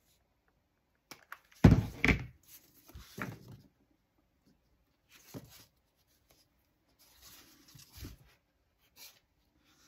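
Scattered rustling and knocks from foam craft strips being handled. The loudest is a thump about two seconds in, followed by several softer ones.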